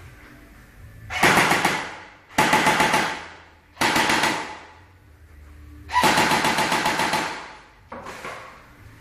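Airsoft gun firing on full auto in five bursts of rapid shots, the longest about a second and a half, with short pauses between them.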